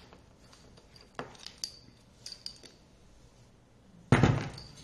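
Light metal clinks, with a faint thin ring, from an electric scooter's hub-motor wheel and its steel brake disc being handled. A heavy thump about four seconds in as the wheel is set down flat on the table.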